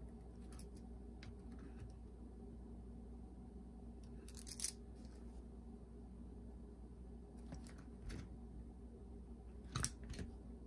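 Scattered faint clicks and light scrapes of small tools and metal parts being handled, a few sharper ones about halfway and near the end, over a steady low hum.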